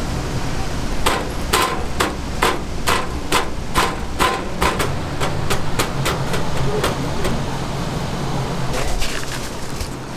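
A quick run of sharp, evenly spaced taps, about two to three a second for several seconds, then a short cluster of taps near the end, over a steady low hum.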